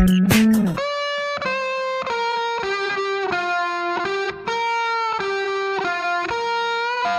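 Background music: a short beat-driven passage gives way, under a second in, to a melody of held notes that change every half second or so, on what sounds like electric guitar.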